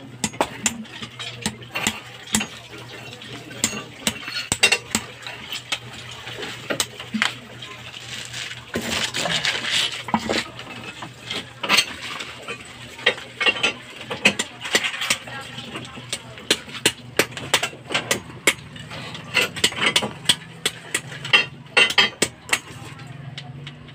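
Hammer striking concrete around a toilet bowl's base, chipping it away to free the toilet for removal: sharp metal-on-concrete clinks, irregular and several a second.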